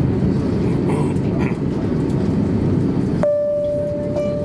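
Cabin noise of an Airbus A350-900 taxiing, heard at a window seat over the wing: a steady low rumble from the idling Rolls-Royce Trent XWB engines and the rolling airframe. About three-quarters of the way in, a steady electronic tone joins the rumble.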